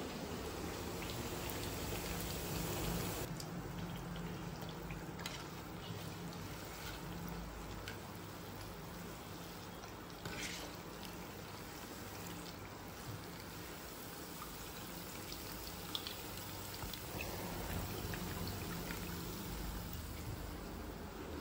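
Rice-flour papdi deep-frying in hot oil in a kadhai: a steady sizzle with scattered small pops and clicks.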